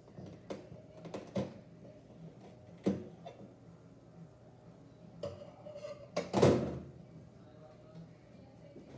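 Scattered household knocks and clunks off-camera, like doors, cupboards and dishes being handled, with the loudest thud about six and a half seconds in.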